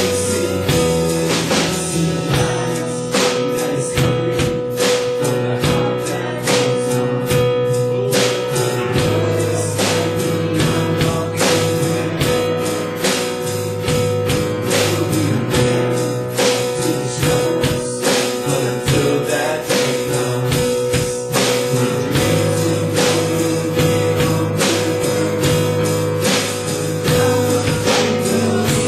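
Live church band playing a steady-beat song on guitar, drum kit and keyboard, with a held note running under the regular drum and cymbal strokes.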